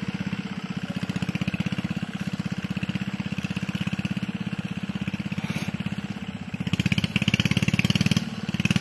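Single-cylinder 4HP diesel engine running steadily as an irrigation pump engine, a rapid even chugging that swells louder for a moment near the end.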